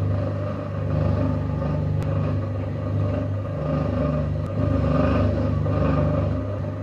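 Electric potter's wheel motor humming steadily as the wheel turns, with light rubbing of wet clay under the hands, a little stronger about five seconds in.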